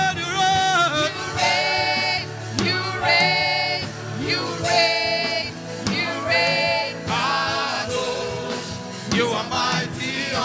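Gospel worship music: a voice singing long, wavering held notes, one after another, over a steady low instrumental backing.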